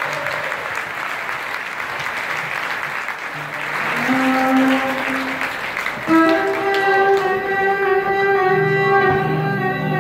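Audience applauding, with a few held instrument notes coming in; about six seconds in, an Arab-Andalusian ensemble of violins, oud and keyboard starts playing.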